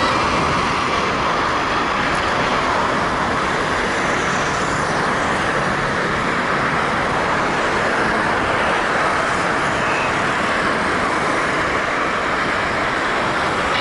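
Airbus A320 jet airliner's engines at takeoff power: a loud, steady rushing roar that holds level throughout.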